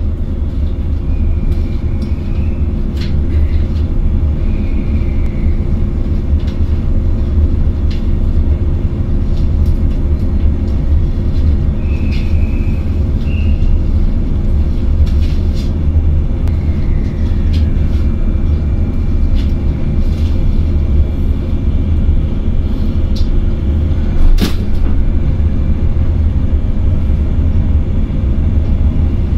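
Running noise heard inside a motor car of a JR West 115 series electric train: a steady low rumble with scattered light clicks and one sharp knock about 24 seconds in.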